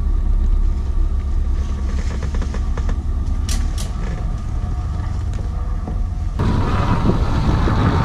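Fishing boat's engine rumbling steadily, heard from inside the wheelhouse, with two short ticks about three and a half seconds in. About six seconds in it cuts abruptly to a rushing wash of wind and sea water along the hull.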